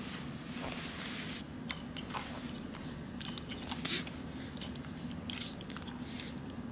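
Scattered small clicks and soft rustles of a baby's cup and clothing being handled close to the microphone, over a steady low hum.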